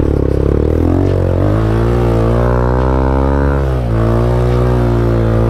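Motorcycle engine running hard under load on a sandy off-road climb. It revs up about a second and a half in, holds high revs, drops back near the four-second mark, then revs up again as the rider works against loose sand that gives little traction.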